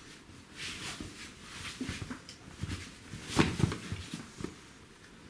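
Scuffing and scraping of a caver moving through a narrow rock passage: boots and clothing rubbing on rock, in an irregular run of small knocks. A cluster of louder knocks comes about three and a half seconds in.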